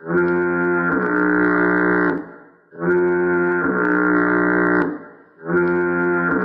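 The SpongeBob fog horn sound effect: a loud, blaring horn blast about two seconds long that changes note about a second in. It sounds three times, once every 2.7 seconds or so, and the third blast is still sounding at the end.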